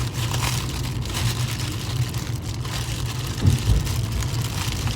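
Plastic packaging being torn open and crinkled by hand, a patter of short crackles, over a steady low hum.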